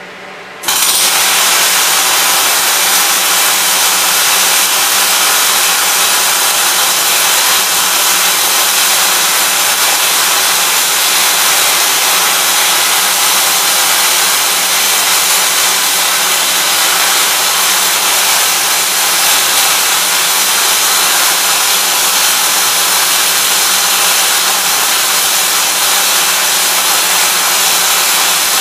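Welding arc of a torque-converter welding machine, with the torch running along the converter's seam: a loud, steady hiss that starts abruptly about half a second in and runs without a break, over a low steady hum.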